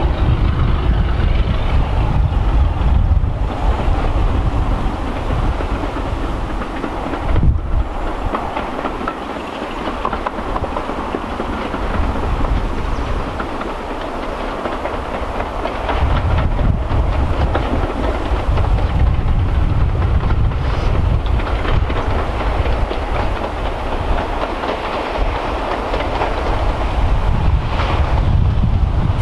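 British Rail Class 33 diesel-electric locomotive D6515, with its Sulzer eight-cylinder engine, running as it hauls a passenger train towards the listener, with the sound of wheels on the rails. A brief thump comes about seven seconds in.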